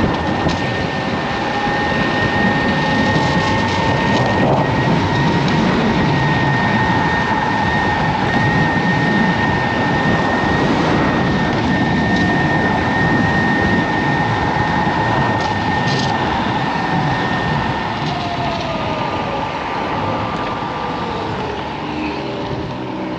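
Kaabo Wolf King GT dual-motor 72 V electric scooter riding along: heavy wind rush on the microphone over a steady high whine from the motors. The whine's pitch sags a little near the end.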